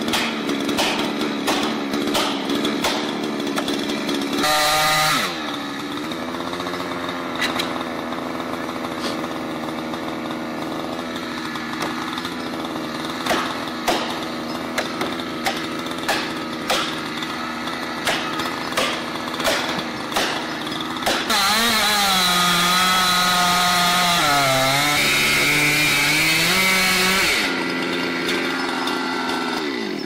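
Two-stroke chainsaw felling a large tree: it idles with a run of sharp knocks about once a second, revs briefly, and from about two-thirds of the way in runs at full throttle for several seconds, its pitch dipping as the chain bogs in the cut, before dropping back to idle.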